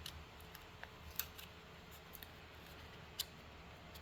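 A few light, sharp clicks of small tools and metal parts being handled while removing a 3D printer's nozzle, the two loudest about a second in and near the end, over a faint steady hum.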